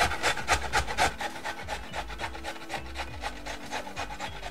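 A carrot being grated on the coarse side of a metal box grater: a steady run of rasping strokes, about four a second, louder in the first second and fainter after.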